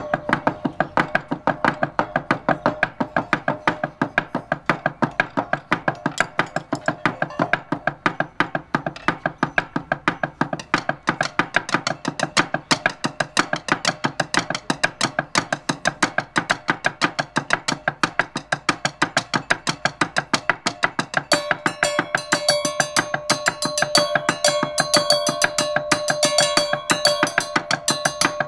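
Two players striking rows of grey percussion bars laid on wooden trestles with mallets, a fast, even stream of struck notes, several per second. About three quarters of the way through, brighter, higher ringing notes join in.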